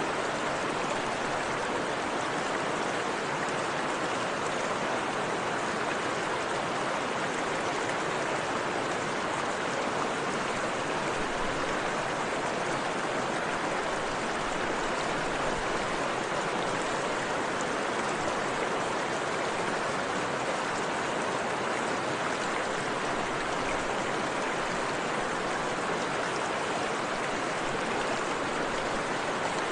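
Steady, even rushing sound of running water, like a stream recording, with no change in level.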